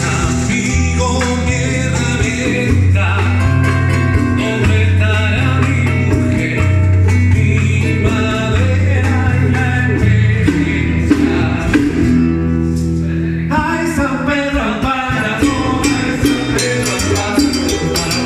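Latin American band music with a steady bass line of held notes under melody and singing.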